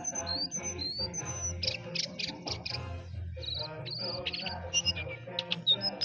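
Caged jongkangan songbird singing a busy, varied song of short rising whistles and sharp chirps, with quick clusters of clipped notes. It is in full song (gacor).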